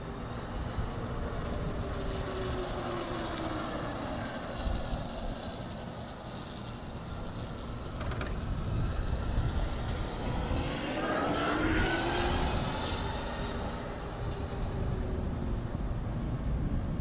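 Electric motorcycle's QS Motor 3000 W mid-drive motor whining as the bike is ridden by. The whine slides down in pitch over the first few seconds, then rises and falls again, and is loudest about two thirds of the way through. A low rumble runs underneath.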